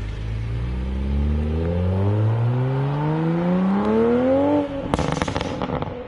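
Stock exhaust of a 2020 Toyota Supra's 3.0-litre turbocharged straight-six, rising steadily in revs for about four seconds. On lift-off it breaks into a rapid burst of crackles and pops lasting about a second: overrun pops from the factory exhaust.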